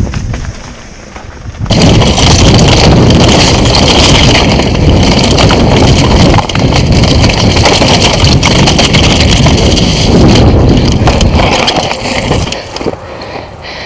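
Downhill mountain bike ridden fast over a loose rocky trail, its tyres crunching on stones and the bike rattling and clattering over rapid knocks, with wind rushing over the helmet-mounted microphone. The noise jumps up sharply about two seconds in and eases off near the end.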